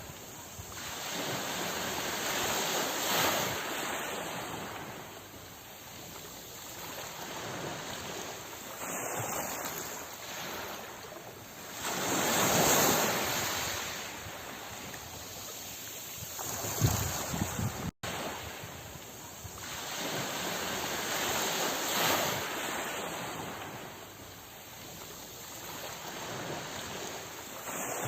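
Sea surf: waves washing in and drawing back, the hiss swelling and fading in slow surges every several seconds, the biggest about halfway through. A split-second gap of silence comes about two-thirds of the way in.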